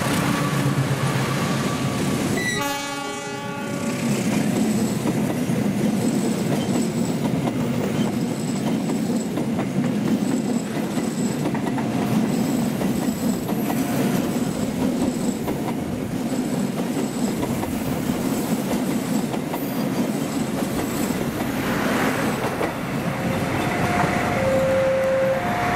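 Passenger train hauled by a diesel-electric locomotive passing close by: its horn sounds at the start and again briefly about three seconds in. The locomotive and a long rake of coaches then roll past with steady wheel and rail clatter. Near the end a repeating two-note tone sounds.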